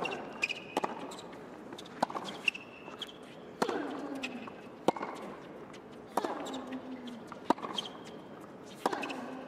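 Tennis rally on a hard court: sharp racket-on-ball strikes and bounces alternate about every second and a half. Several hits are followed by a player's short grunt that falls in pitch.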